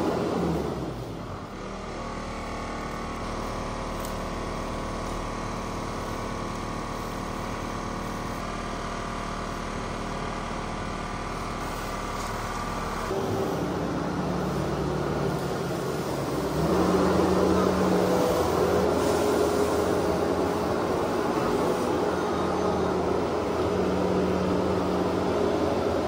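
Case SV340 skid steer loader's diesel engine running steadily as it works old bedding with its grapple. About halfway through the sound turns louder and rougher, and it climbs again a few seconds later as the machine works harder.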